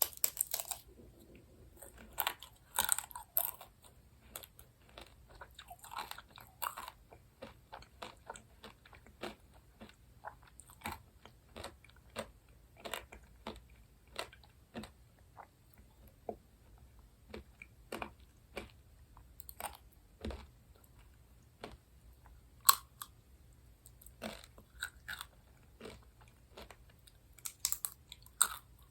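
Close-miked eating sounds: steady chewing of sweets, many small clicks and crackles, with a few louder crunching bites, at about two to three seconds in, around six seconds, once at about twenty-three seconds and again near the end.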